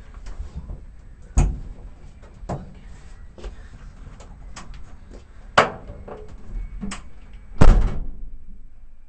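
A run of clunks and knocks inside a parked car's cabin, with three louder thuds, the last and loudest near the end like a car door shutting.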